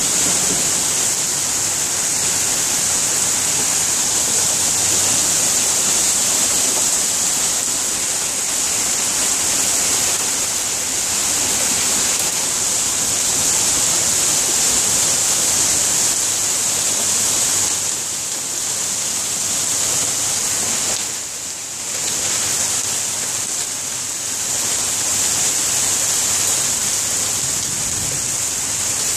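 Heavy rain pouring down in a dense, steady rush, beginning suddenly and briefly easing about two-thirds of the way through.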